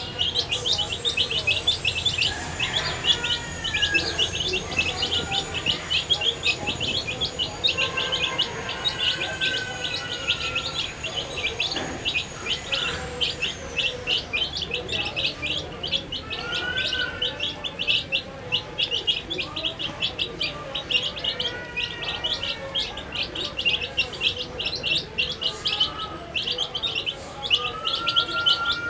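A group of baby chicks peeping constantly, a dense stream of short high chirps, many each second, with now and then a longer, lower gliding call.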